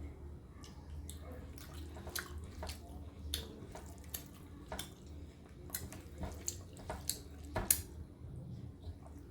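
Close-up eating sounds of a person eating a rice-and-dal meal: irregular wet clicks and smacks, roughly one or two a second, the sharpest about three quarters of the way through, over a low steady hum.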